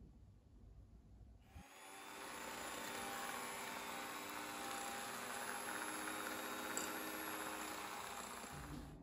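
Electric hand mixer beating eggs and sugar in a bowl: a steady motor hum with the beaters whisking through the liquid. It starts about a second and a half in and stops near the end.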